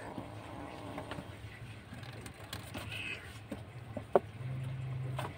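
Two kittens play-fighting on a cardboard-covered shelf: faint scuffling and light taps of paws, with one sharp tap about four seconds in. A low steady hum comes in briefly near the end.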